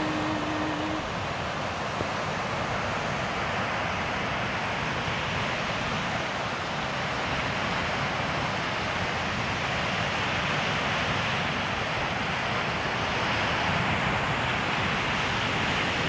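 Ocean surf breaking on a sandy shore: a steady, unbroken rush of waves.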